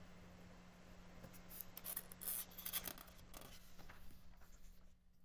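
Paper pages of a paperback book rustling softly as a page is turned by hand: a few light scrapes and crinkles starting about a second in.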